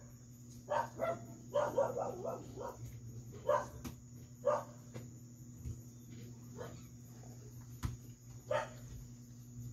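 A dog barking repeatedly in short barks at uneven intervals, with a quick run of barks about two seconds in, over a steady low hum.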